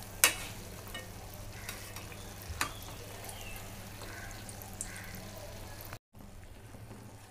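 Donuts deep-frying in oil in a steel pan over a low flame, a steady sizzle throughout. A metal slotted spoon clinks sharply against the pan about a quarter second in and again at about two and a half seconds as the donuts are turned. The sound cuts out for a moment near the end.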